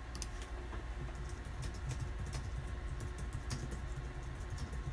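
Scattered clicks of computer keys over a low steady hum.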